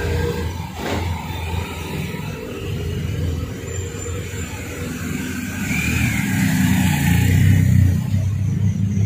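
Motorcade cars and police escort motorcycles driving slowly past close by, a steady low engine rumble that grows louder toward the end as a large car passes.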